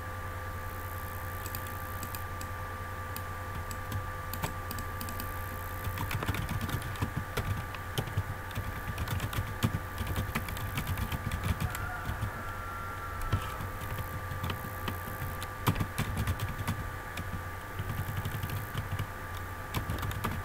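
Typing on a computer keyboard: a run of irregular key clicks, sparse at first and quick and steady from about six seconds in, over a steady low hum.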